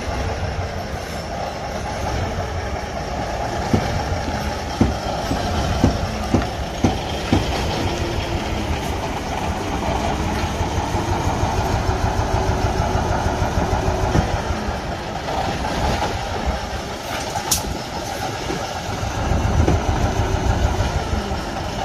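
Cummins ISX15 diesel engine in a Freightliner Cascadia tractor running rough, with a steady, uneven pulsing misfire sound. The misfire comes from compression leaking into the intake and exhaust past damaged valves and displaced valve seats in one cylinder of the head.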